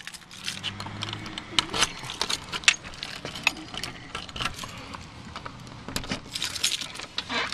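A bunch of keys jangling, with quick irregular metallic clicks and rattles as a key is worked in a keyed brass doorknob lock that is being stubborn to unlock.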